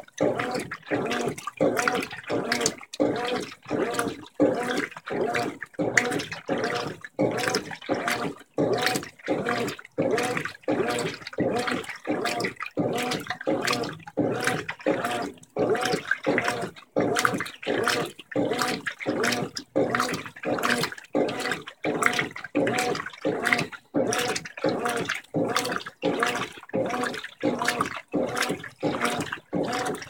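Brastemp 15 kg top-load washing machine agitating a wet queen-size bedspread on its Turbo wash setting: water and fabric sloshing in quick, regular back-and-forth surges as the wash plate reverses.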